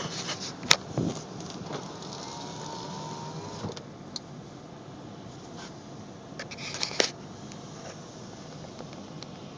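Steady rushing of storm wind and surf, muffled inside a car, with a few sharp clicks and knocks, the loudest just under a second in and another about seven seconds in.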